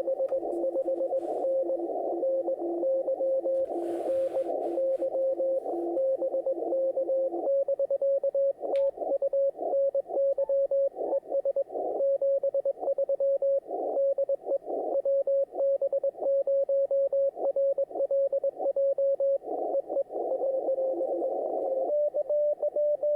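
Morse code (CW) signals from an HF amateur radio receiver, sent as keyed beeps over a narrow band of static. For the first seven seconds or so two stations at different pitches send over each other; after that one station's keying carries on, then another tone a little higher in pitch comes in near the end. This is a pileup of stations calling a Parks on the Air activator.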